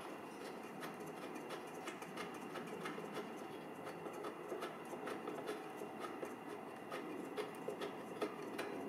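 Faint, irregular small clicks and scraping of a spark plug wrench turning the spark plug out of a lawnmower engine.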